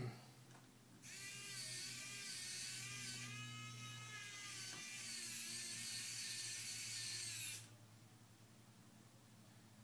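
A small power tool's motor runs for about six and a half seconds, with a wavering whine over a hiss. It starts about a second in and cuts off sharply.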